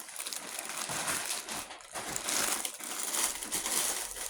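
Packaging rustling as hands rummage through a parcel of clothes, in uneven bursts of handling noise.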